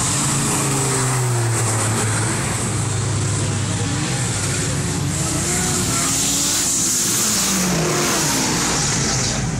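Performance cars running hard on a racetrack straight, engines revving with their pitch rising and falling through the gears over a steady wash of engine and tyre noise.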